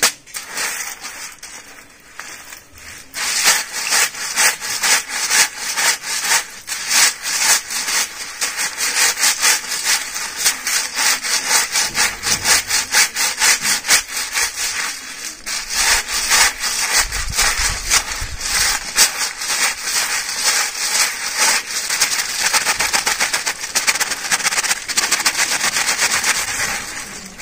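A cloth bundle of snails scrubbed hard back and forth on a rough stone slab, making a fast, rhythmic scraping of several strokes a second. The scraping picks up in earnest about three seconds in.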